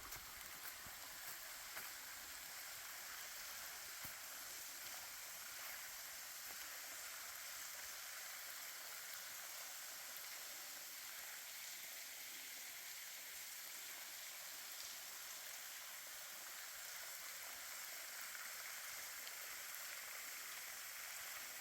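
Steady, soft hiss of water in the woods, even and unbroken, with a few faint ticks near the start.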